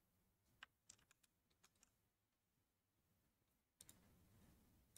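Near silence with a few faint, short clicks.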